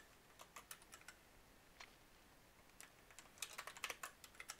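Faint computer keyboard keystrokes: scattered single key presses, then a quick run of several about three and a half seconds in.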